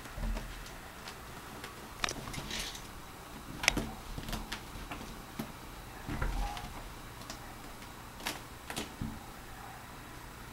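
Kittens clawing at and climbing a fabric curtain: irregular light clicks and taps, the loudest about three and a half seconds in.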